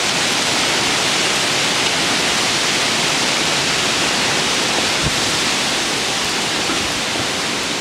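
Heavy hurricane rain pouring down steadily, a dense even hiss.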